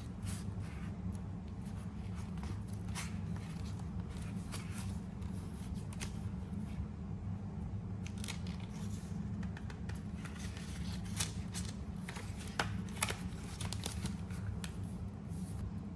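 Scissors cutting paper or sticker sheets: a scattered series of short, crisp snips and paper handling, a few sharper ones near the end, over a steady low hum.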